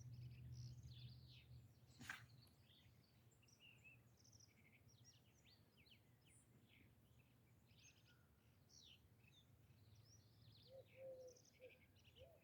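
Faint outdoor birdsong: many small birds chirping in short, scattered calls, with a single sharp click about two seconds in and a few short low notes near the end.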